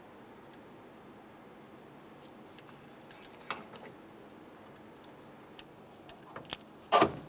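A few light knocks and clicks from a radiator being lowered into its support and its lower posts seated in rubber grommets, over quiet workshop room tone. A short, louder sound comes near the end.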